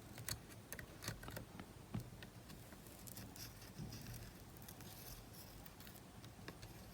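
Faint, scattered small clicks and light taps of handling and tools working inside a portable cassette player, as the tape head's ribbon cable is taken off.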